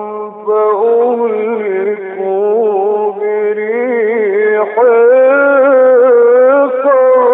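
Male Qur'an reciter chanting in the mujawwad style, drawing out long vowels in melodic, ornamented phrases with wavering pitch, with a short breath-break about half a second in.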